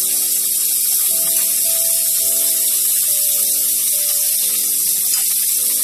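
Prawns frying in hot oil in a wok: a steady, loud sizzling hiss.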